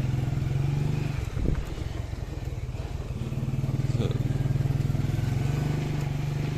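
A motor vehicle's engine running steadily at a low, even hum while travelling along a road.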